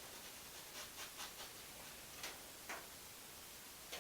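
Flat paintbrush making faint, short scratchy strokes on canvas: a quick run of strokes about a second in, then three single strokes.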